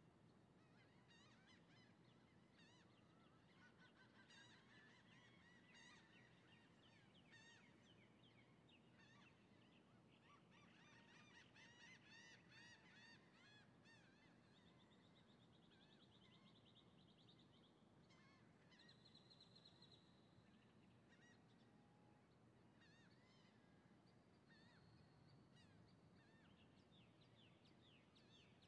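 Faint birds chirping and calling, many short overlapping calls with a few longer buzzy trills, over a steady low background rumble.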